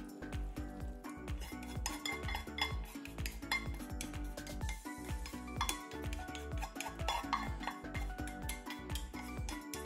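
A utensil clinking and scraping against cookware while food is stirred, in many quick, irregular clinks, over quiet background music.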